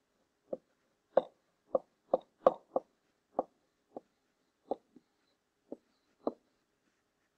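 A stylus tapping on a digital writing surface as words are handwritten: about a dozen short, uneven taps.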